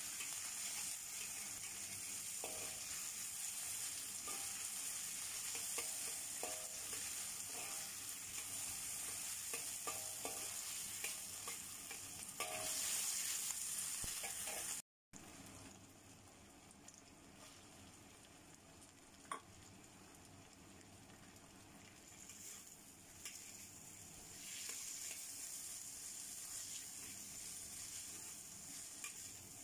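Diced carrot and other chopped vegetables sizzling in oil in a wok, stirred and scraped around with a metal spatula. The sizzle is steady, drops out for a moment about halfway, then carries on quieter, with sliced mushrooms now in the wok.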